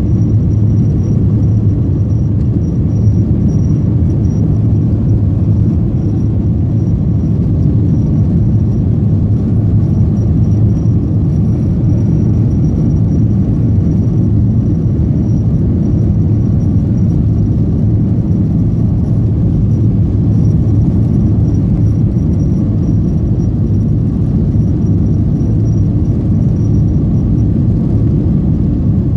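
Steady low rumble of a Boeing 737-900's CFM56-7B jet engines and airframe, heard from inside the passenger cabin while the aircraft is on the ground, with a faint high whine.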